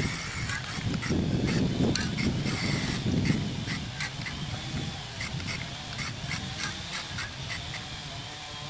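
Short hisses of a Rust-Oleum hammered spray paint can under a Comfort Grip trigger, over wind buffeting the microphone as a low rumble that is strongest in the first few seconds. Faint chirping in the background.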